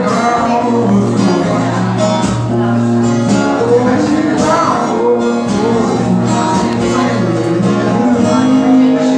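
Live acoustic guitar strummed steadily under a man's singing voice. About eight seconds in the low bass notes drop out and a chord rings on.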